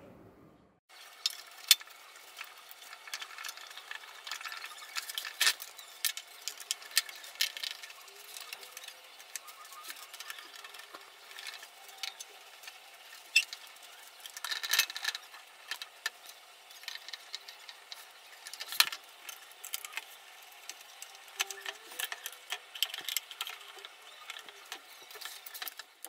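Irregular metallic clicks, clinks and scrapes of a screwdriver and screws as a small PA amplifier's metal cover is screwed back on, starting about a second in.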